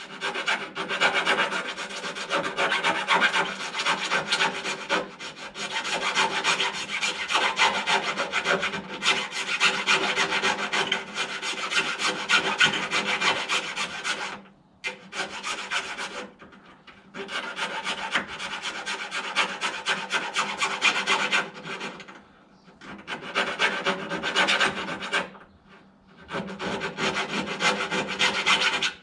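Hand file rasping back and forth in the wiper-motor mounting holes of a freshly painted car body, clearing out filler and paint so the parts will fit. The strokes come in long runs, with a few short pauses.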